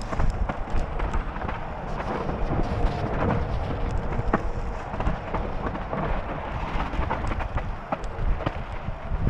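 Mountain bike descending a rocky dirt trail, heard from a helmet-mounted camera: wind rumbling on the microphone, with tyre noise and frequent sharp knocks and rattles as the bike hits rock.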